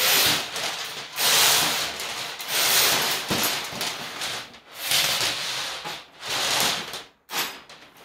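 Steel cable of a 15-foot toilet auger being pulled hand over hand through the auger's metal tube and handle, a scraping, hissing slide in repeated strokes about once a second.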